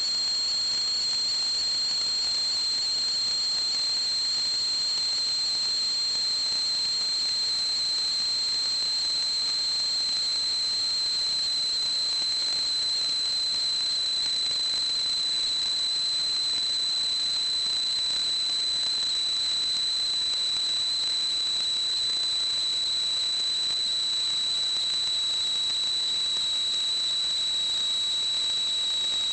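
A steady, high-pitched whistle over a hiss, sinking very slightly in pitch.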